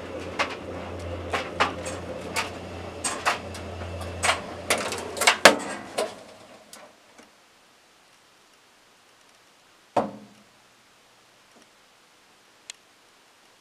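Clothes dryer running: a steady hum with clothes knocking irregularly in the tumbling drum. It stops about five and a half seconds in and winds down, and a single thump follows about ten seconds in.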